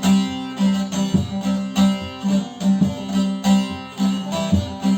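Instrumental interlude of a Turkish folk song played on a strummed plucked string instrument, with no singing: a steady rhythmic strum under a repeating melody.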